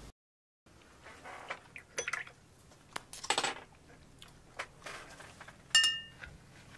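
Scattered clinks, taps and short scrapes of cutlery and dishes, with one brief ringing clink near the end.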